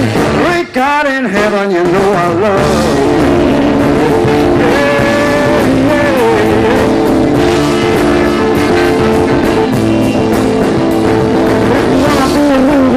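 Live rock band playing, guitar to the fore, with a short break just under a second in before the full band carries on with sustained chords.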